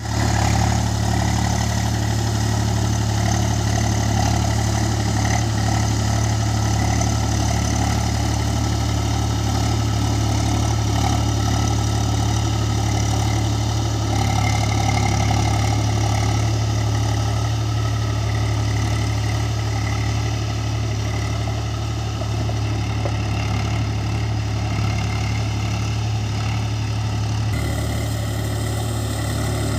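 Swaraj tractor's diesel engine running steadily at a constant pitch, working under load while pulling a rotavator on cage wheels through a flooded paddy field.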